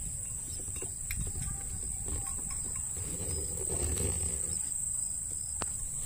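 Steady high insect buzz over a low wind rumble. A short, low cow moo comes around the middle, and one sharp click comes near the end.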